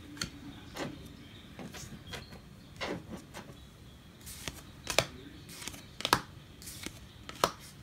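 A stack of baseball cards being flipped through by hand, one card at a time: short paper-card slides and snaps as each card is moved to the back, coming irregularly about once a second.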